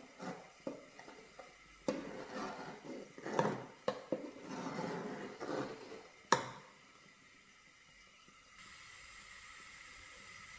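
Metal spoon stirring milk and rice in a large metal pot, scraping along the bottom and knocking against the sides, with several sharp clinks. The loudest clink comes about six seconds in. The stirring then stops, leaving a faint steady hiss.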